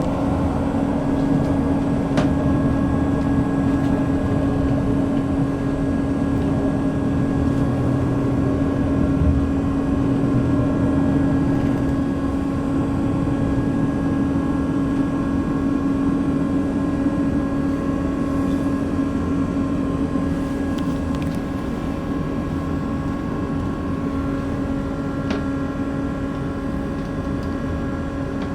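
Steady drone of a diesel passenger train heard from inside the carriage: a constant hum holding one pitch, with overtones, over a low running rumble.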